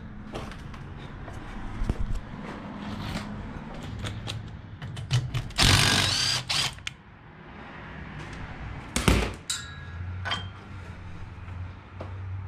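Clinks and knocks of metal tools and parts as an engine mount is unbolted, with a short, loud burst from a cordless power tool on a socket extension about halfway through and another brief loud burst a few seconds later.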